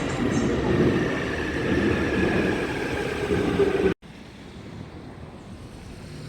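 Loud, steady rumble of a moving vehicle, like a train or bus ride, with a faint falling whine. It cuts off abruptly about four seconds in, leaving a much quieter background hum.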